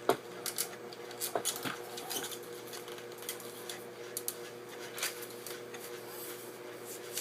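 Targus 66-inch tripod's aluminium legs and plastic quick-release leg locks being handled and collapsed: scattered clicks and knocks, a few louder ones in the first two seconds. A faint steady hum runs underneath.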